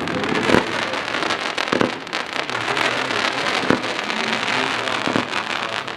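Firework battery (multi-shot cake) going off: a dense, continuous crackling with a few louder bangs spaced a second or more apart.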